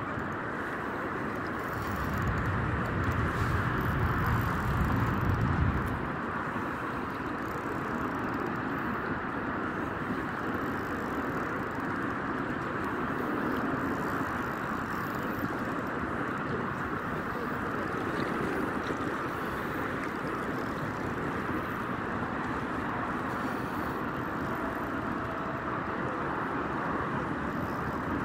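Steady outdoor noise of wind and shallow sea water around a wading angler, with a few seconds of low wind rumble on the microphone near the start.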